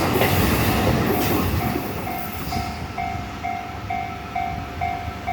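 An electric commuter train runs past a level crossing, its rolling noise loud at first and fading over the first two seconds. The crossing's warning bell rings in a steady pulse of about two strokes a second.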